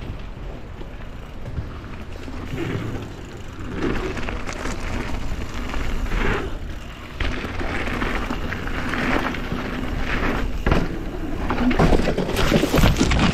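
A mountain bike is ridden over a dirt trail and a wooden ramp: tyre noise and rattling from the bike, with sharp knocks where it hits bumps and the ramp. Wind rumbles on the microphone throughout.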